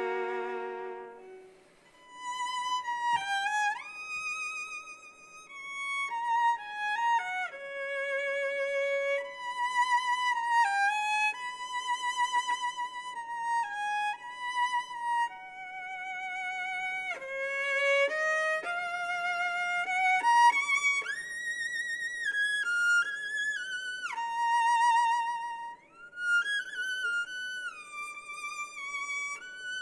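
Unaccompanied violin playing a slow melody with vibrato, mostly one note at a time, with a brief pause about two seconds in and a climb to high held notes past the middle.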